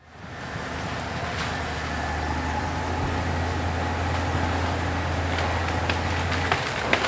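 CAT D6 bulldozer's diesel engine running steadily under load, its low hum shifting about six and a half seconds in, with a few sharp cracks in the second half.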